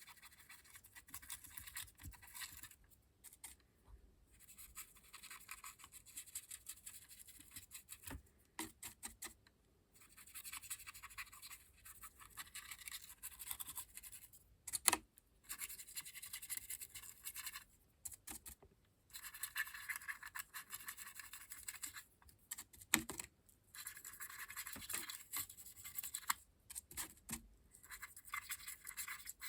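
Brush scrubbing weathering pigment powder onto a model railway vehicle: scratchy brushing in stretches of a few seconds with short pauses, and a couple of sharp knocks.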